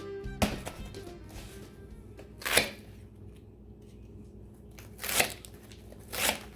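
A packet of Shake 'n Bake coating mix being handled and its crumbs shaken out: four short, noisy bursts, the loudest about halfway through. Background string-band music plays underneath.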